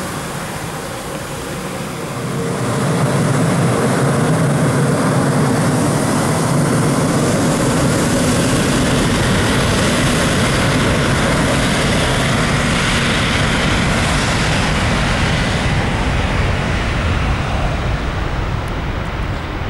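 Embraer ERJ-195 jet airliner's two GE CF34-10E turbofans at takeoff power during the departure. The sound grows louder about two seconds in, holds steady, and eases a little near the end.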